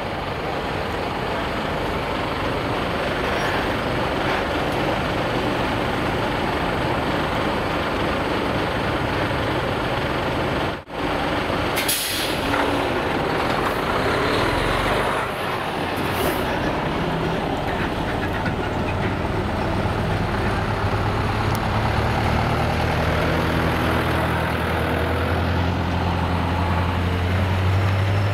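Heavy decorated trucks' diesel engines running as they pull out, with short air-brake hisses about twelve and sixteen seconds in. Near the end one truck's engine note grows louder and rises slightly in pitch.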